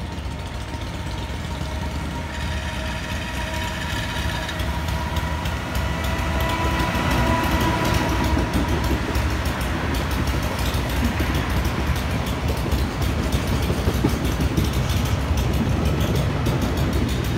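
JR Freight EF210 electric locomotive hauling a container freight train past on elevated track: a steady rolling rumble that grows louder about six seconds in as the wagons pass, with wheels clicking over rail joints.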